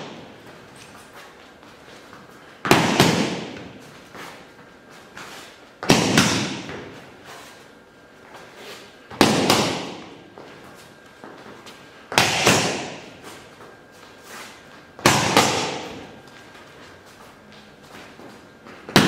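Boxing-glove jabs landing on a partner's raised hands and forearms: six hard thuds, about every three seconds, each trailing off in the room's reverberation.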